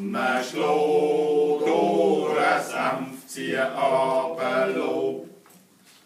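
Several voices singing a Schnitzelbank verse together, a cappella, with long held notes; the singing ends about five seconds in.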